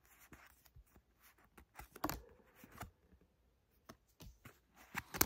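Pokémon trading cards being flipped through by hand, each card slid from the front of the stack to the back: faint, scattered soft clicks and slides of card stock, with louder flicks about two seconds in and near the end.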